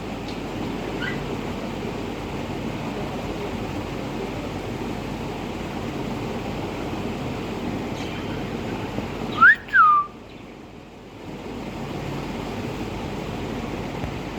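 A parrot whistling: one short two-part whistle about nine and a half seconds in, sliding up and then back down, over a steady low background noise.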